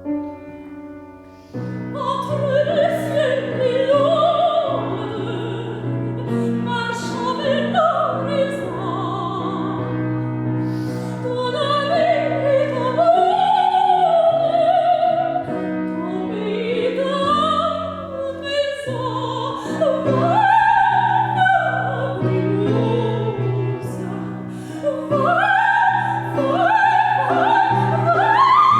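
Operatic solo singing with wide vibrato, accompanied by piano chords; the voice comes in about two seconds in.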